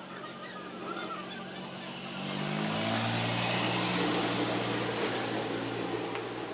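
A road vehicle passing by. Its engine sound swells about two seconds in, drops in pitch in a few steps, then fades away.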